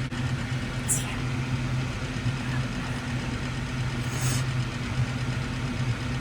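Electric fan running with a steady hum, with two brief soft hisses about one and four seconds in.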